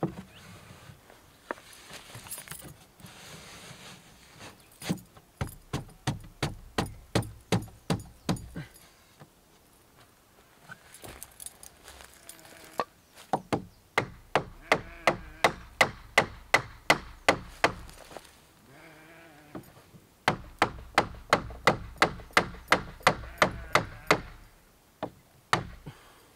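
Hammer driving nails into wooden boards: three runs of steady blows, about three a second, with pauses between them. A short wavering cry sounds between the second and third runs.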